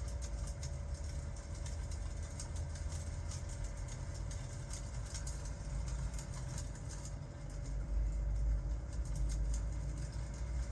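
Crackling fireplace with rain, irregular small crackles over a steady hiss, under a low rumble that swells about eight seconds in.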